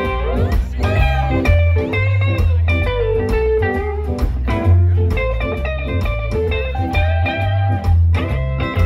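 Rockabilly band playing live: electric guitars over a steady bass line and drums.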